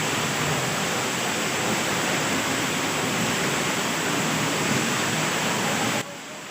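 Waterfall: a steady rush of falling water. It cuts off suddenly near the end, leaving a much quieter background.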